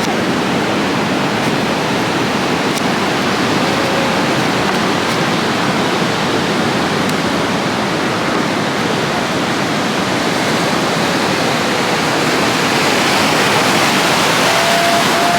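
Ocean surf washing onto a beach: a steady, even rush that swells slightly near the end.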